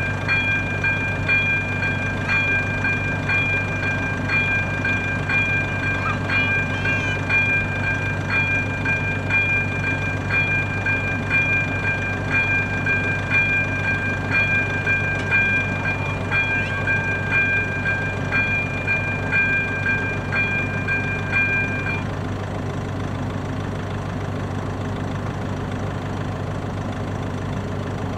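Level-crossing warning bell (AŽD electronic bell ZV-02) ringing a steady two-pitched electronic tone, broken by a short click about once a second. It stops about 22 seconds in, leaving a steady low hum.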